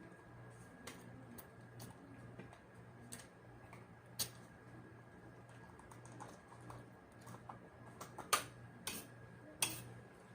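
Eating sounds: scattered sharp clicks and smacks from chewing and handling food, coming closer together near the end, over a faint steady hum.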